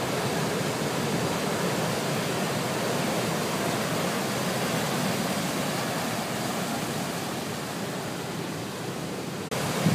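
Steady rushing noise of heavy surf from a hurricane swell, waves breaking and white water washing over the rocks, with an abrupt break about nine and a half seconds in.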